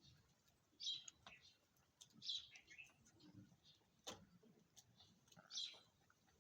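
Faint, short high chirps from a small bird, repeated every second or two, with one sharp click about four seconds in.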